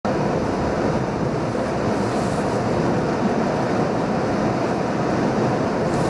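Steady road noise of a vehicle driving on a wet highway: an even rush of tyre and engine noise.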